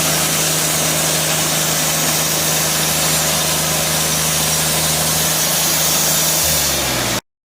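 Portable sawmill's engine running steadily under a dense hiss. Near the end its pitch drops, then the sound cuts off suddenly.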